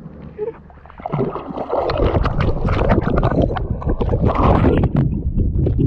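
Water splashing and sloshing right at the camera's microphone, starting about a second in and loud from about two seconds on, with many sharp splashes.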